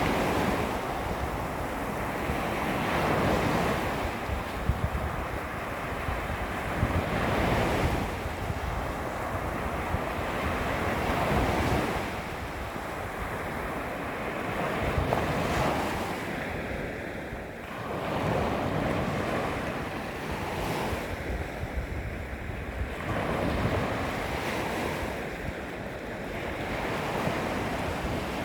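Small waves lapping against a beach shoreline, each wash swelling and falling back every few seconds, with a few sharper splashes.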